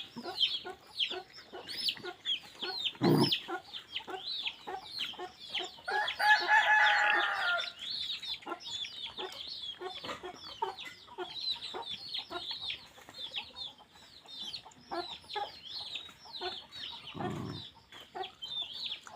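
Chickens: a steady stream of high, falling peeps and clucks, with one longer call lasting about a second and a half just past the first third. Two short low thumps, one early on and one near the end.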